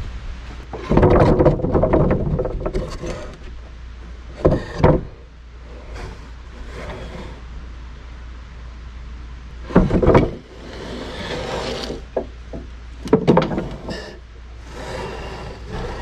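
Freshly sawn lumber boards being handled and stacked, with irregular wooden knocks, clatters and scrapes: a long burst about a second in and shorter ones near five, ten, thirteen and fifteen seconds. A steady low hum runs underneath.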